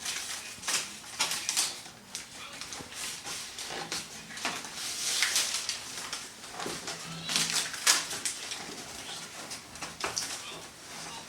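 Aluminum foil tape being pressed and smoothed around the seam of sheet-metal dryer ducts: irregular crinkling and scratching with short clicks and light knocks from handling the duct.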